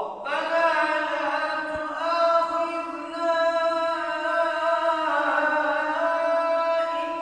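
A single voice begins chanting suddenly out of silence, holding long notes that shift slowly in pitch: melodic Islamic recitation in a mosque.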